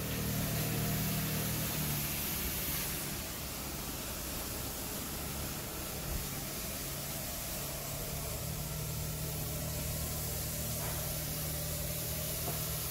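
Houseboat engine running steadily with a low hum, under an even hiss of water and wind as the boat moves along.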